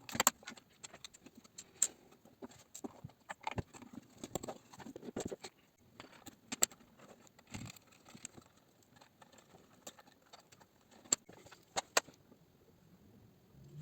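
Irregular small clicks, taps and rattles, dense for the first six seconds, then a few sharp isolated clicks, the last near the end.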